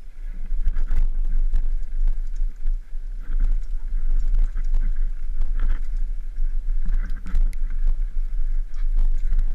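Wind rushing over a helmet-mounted action camera's microphone during a fast mountain-bike descent, a steady low rumble, with frequent knocks and rattles from the bike and tyres bouncing over a rough dirt and rock trail.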